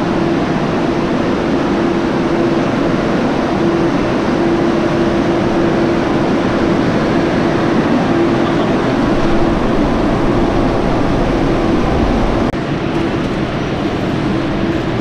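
Steady noise of an underground train station, a stopped electric commuter train beside the platform, with a constant droning hum that does not let up. The level drops slightly a little past twelve seconds in.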